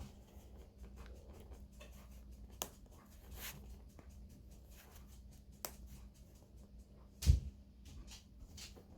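Faint scattered taps and clicks of things being handled, with one louder knock about seven seconds in.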